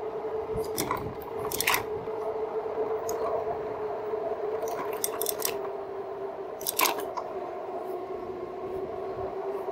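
Electric bike's geared rear hub motor whining steadily under pedal assist, its pitch dropping a little as the speed eases. Several sharp clicks and rattles from the bike's frame and handlebar-mounted gear.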